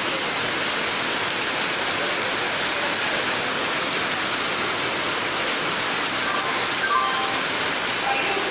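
Heavy rain pouring down steadily onto a railway platform and the roof of a standing commuter train, a dense even hiss.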